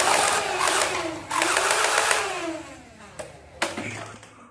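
Battery-powered toy gun firing its rapid-fire sound effect: a dense rattle that fades away over a couple of seconds with a wavering tone, followed by two sharp clicks.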